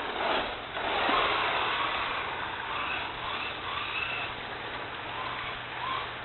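Radio-controlled car driving on icy ground, heard from a camera mounted on the car: a steady rushing noise of tyres and chassis over the ice, with a few short faint whines.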